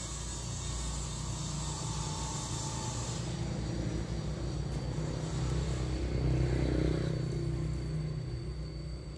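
A passing vehicle's low engine rumble, building to its loudest about six to seven seconds in and then fading.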